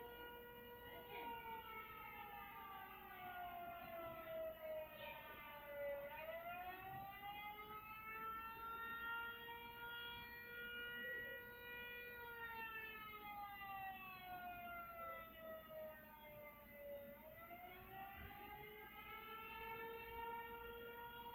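Recording of an outdoor tornado warning siren wailing, with a chord-like tone of several pitches. It holds a steady pitch, slowly slides down and climbs back up, then does the same again.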